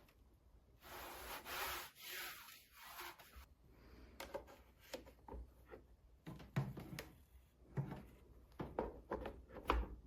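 Handling sounds: rubbing and rustling for a couple of seconds, then a run of irregular clicks and light knocks.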